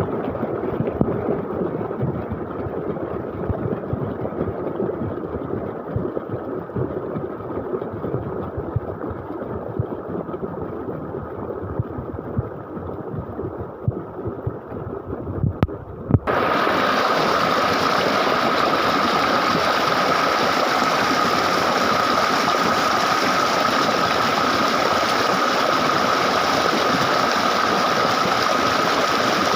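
Running water from a canal or stream: an uneven rushing about halfway, then an abrupt change to a louder, very steady rush with a faint steady whine in it.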